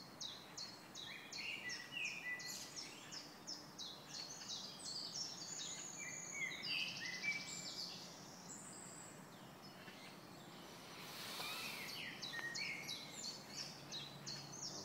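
Several songbirds chirping and singing together in a dense chorus of short, high, overlapping notes, with a brief rush of noise about eleven seconds in.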